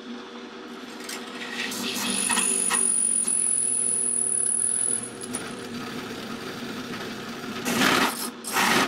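Drill press motor running steadily while its spinning, flat-ground driver bit is pressed onto a steel fender washer for friction welding. From about two seconds in, a louder scraping of metal on metal comes with a thin high squeal and eases off about five seconds in. Harsh grinding bursts come near the end as the bit bears down on the washer.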